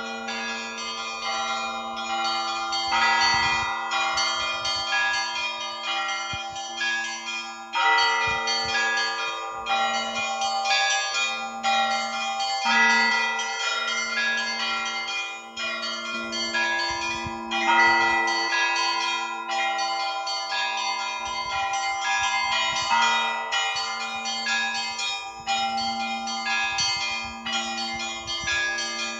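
Russian Orthodox church bells ringing a continuous peal. A low bell sounds steadily about once a second under a quick, unbroken pattern of smaller, higher bells.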